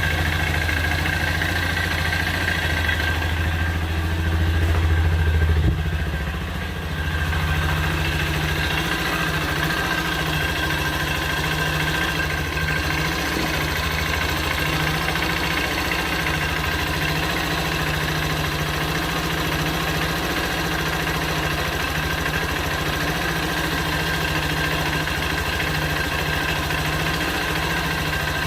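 New motorcycle's engine idling, which the owner calls rough-sounding (kasar) for a new bike. It runs louder for a few seconds near the start, drops about six seconds in, and then holds a steady idle.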